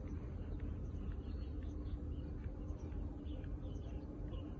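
Outdoor ambience: a steady low rumble and hum, with faint short chirps scattered through it.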